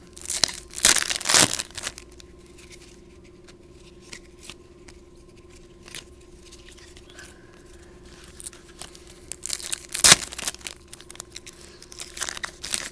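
Foil baseball card pack being torn open and crinkled by hand. It comes in two loud bouts, one about a second in and another from about eight and a half seconds in, with a sharp crackle near ten seconds.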